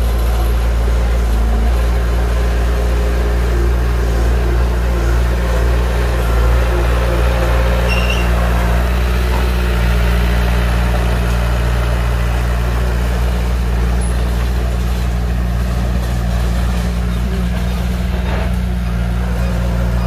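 Heavy diesel engine of earthmoving machinery running steadily, a loud, even low drone that does not rise or fall.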